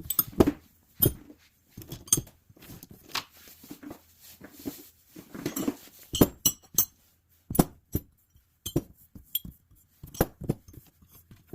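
Loose metal wrenches clinking and clanking against one another as they are handled and pulled out of their set, in irregular sharp clinks with short bits of handling noise between them.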